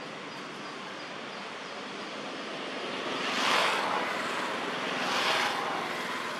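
Steady outdoor background noise that swells twice into a rushing sound, a little under two seconds apart, in the second half.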